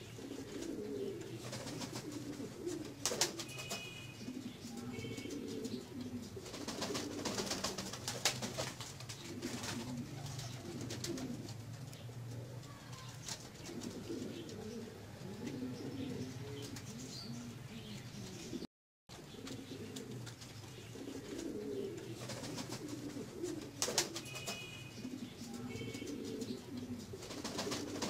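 Pouter pigeons cooing over and over in a loft, low rolling coos with a few sharp clicks between them. The sound drops out for a moment about two-thirds of the way through.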